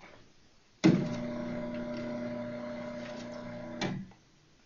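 A steady machine hum with a few held tones, starting abruptly about a second in and cutting off about three seconds later.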